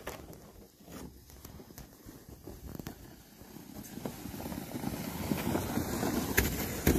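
Plastic sled sliding and scraping over snow, a rough hiss that grows steadily louder over the second half as the sled comes closer.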